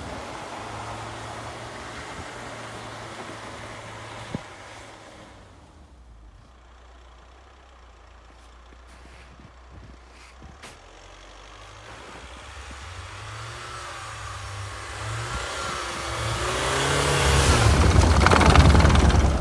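Volkswagen Amarok pickup's engine pulling in four-wheel drive through deep snow, wheels spinning. The revs are quieter in the middle, then rise and fall, and near the end it is loudest, with the spinning tyres churning and throwing snow, before cutting off suddenly.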